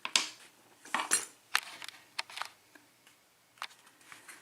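Small metal lock pins and parts clicking and clattering as they are handled, a quick run of sharp clicks in the first couple of seconds, then a few scattered clicks later.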